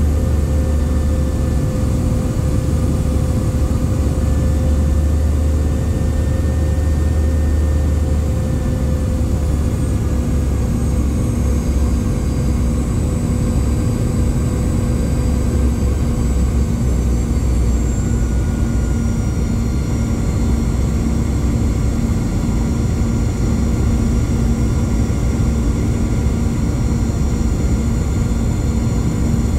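A Boeing 717's rear-mounted Rolls-Royce BR715 turbofans heard from inside the cabin on approach. It is a steady low rumble with a hum, and a thin high whine that drifts slightly lower partway through.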